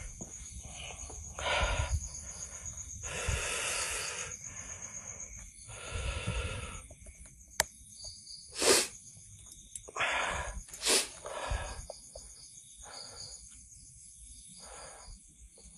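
A person's heavy breathing, a run of drawn breaths in and out about a second or two apart, with a sharp click about seven and a half seconds in.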